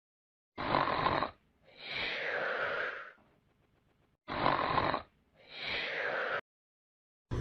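Snoring sound effect: two snores, each a short rasping in-breath followed by a longer out-breath that falls in pitch.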